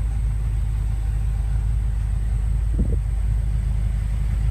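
A steady low rumble with a brief faint knock about three seconds in.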